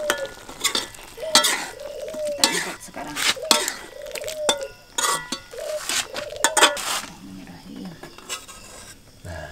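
Metal spatula scraping and clanking against an aluminium wok as squid is stirred with its spices, in strokes about once a second, each with a short squeal of metal on metal. The strokes thin out to a few lighter clinks near the end.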